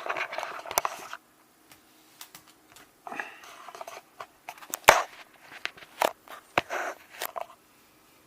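Several sharp clicks among short bursts of rustling, the loudest click about five seconds in.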